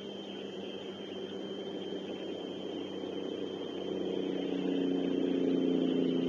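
Steady hiss of rain with an engine hum that swells over the second half and starts to fade near the end, like a vehicle passing at a distance. A faint steady high whine runs underneath.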